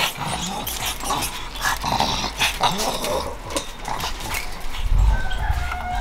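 Small chained dogs making short growls and whines, among many short clicks and rattles.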